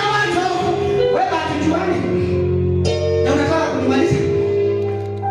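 Gospel music with a singing voice over held keyboard chords.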